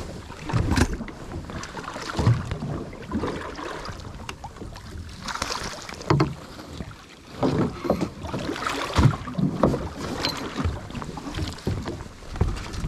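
Water slapping and knocking irregularly against a small boat's hull, with wind buffeting the microphone.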